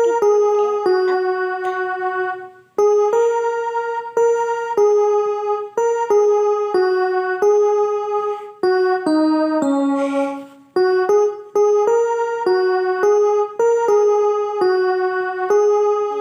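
Casio CTK-2550 portable keyboard playing a simple single-note melody, one note at a time, each held about half a second to a second, with two brief breaks.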